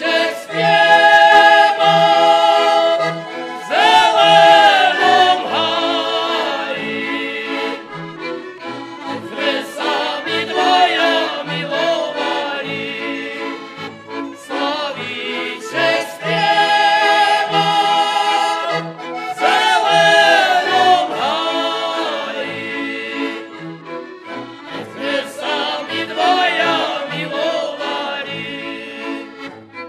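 Slovak folk band playing and singing: men's voices sing a song together over button accordion, violins and a bowed cello that keeps a steady, pulsing bass beat.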